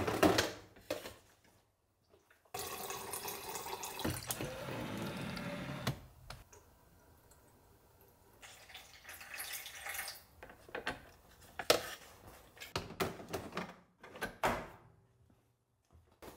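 Water running from a kitchen tap for about three seconds, starting and stopping abruptly, between scattered knocks and clatter of kitchen items being handled.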